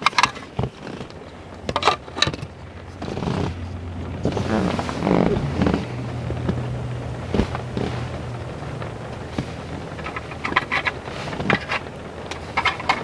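Plastic parts of a car's third brake light housing clicking, knocking and scraping as they are handled and refitted, with a steady low hum behind.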